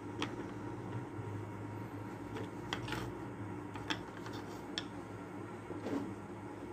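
Light clicks and taps of small wooden strips being handled and knocked against a wooden base, about half a dozen spread over the few seconds, over a steady low hum.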